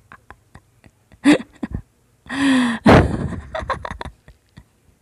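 A woman's breathy, gasping cackle used as a horror sound effect, in short bursts between scattered clicks.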